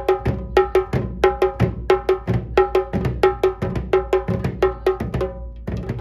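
A tasha, a small kettle drum, beaten with two thin sticks in a fast, driving rhythm of sharp, ringing strokes. The strokes break off for about half a second about five seconds in, then resume.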